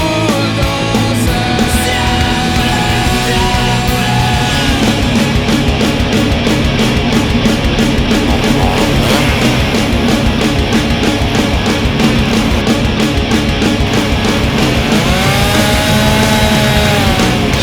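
Loud rock music, a band recording with a driving, steady drum beat.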